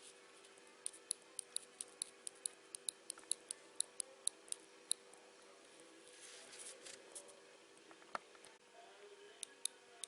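Brake-lever micro-switch on a BMW R1200 GS clicking over and over by hand, about four sharp clicks a second for several seconds, then a little rustling and a few more clicks near the end. The switch still clicks mechanically but no longer makes electrical contact: the switch has failed.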